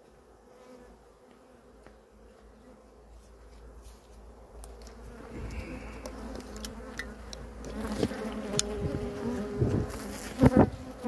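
Honeybees buzzing around the hive entrances, faint at first and growing steadily louder as bees fly close by. A few sharp thumps come near the end.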